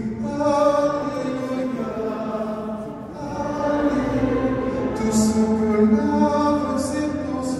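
A congregation singing a slow chant together, with held notes, for the sprinkling with holy water.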